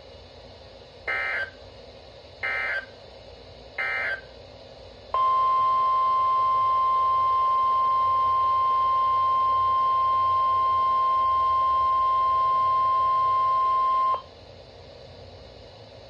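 A Midland weather alert radio's speaker plays three short warbling SAME digital data bursts. About a second later comes the steady NOAA Weather Radio warning alarm tone at 1050 Hz, held about nine seconds before it cuts off suddenly. These are the coded signals that separate and announce the emergency alert broadcasts.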